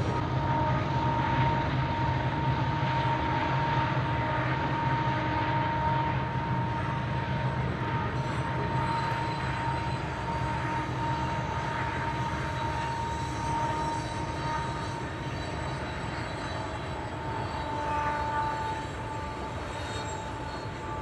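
Diesel-hauled freight train running by, a steady engine rumble and rolling noise with a thin high whine over it, slowly fading as the train moves away.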